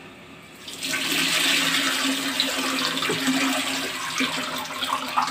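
A thin batter of buttermilk, gram flour and water is poured through a steel sieve into a large aluminium pot, making a steady rushing, splashing stream that starts about a second in.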